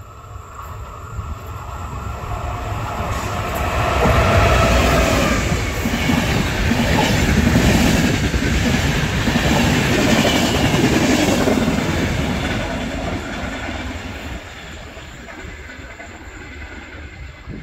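Intercity passenger train passing: its rumble builds over the first few seconds, the coaches' wheels clatter over the rail joints as they go by, and the sound fades away over the last few seconds.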